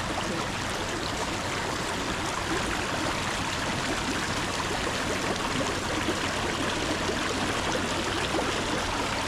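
Stream water rushing steadily, a constant splashing hiss with no break.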